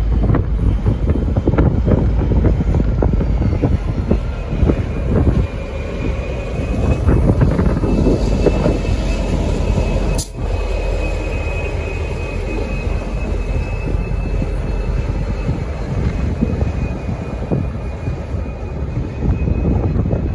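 Train moving through a station platform: a steady low rumble with irregular knocks from the wheels and running gear, and a thin, high, slightly wavering wheel squeal that sets in about six seconds in and holds. A single sharp click about halfway through.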